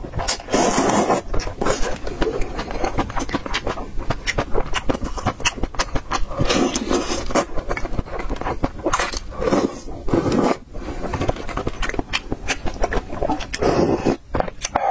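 Close-miked slurping and wet chewing of instant noodles in broth, with many lip smacks, and a slurped sip of broth from a spoon near the end.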